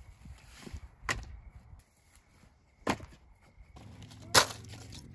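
Split firewood pieces knocking together as they are set down and stacked on a pile: three sharp wooden knocks, the last the loudest.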